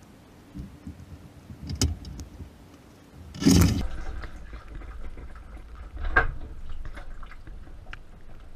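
Dishwasher running: a low rumble with a few knocks and one short burst of water spray about three and a half seconds in.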